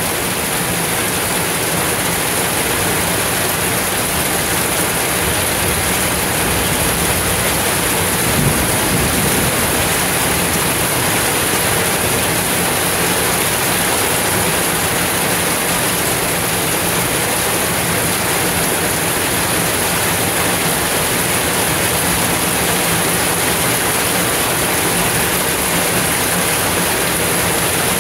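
Heavy, steady downpour of rain hitting the pavement, with a brief low rumble about eight seconds in.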